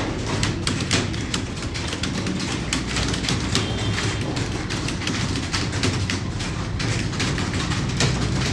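Computer keyboards clattering as several people type at speed during a typing test: dense, irregular key clicks over a steady low hum.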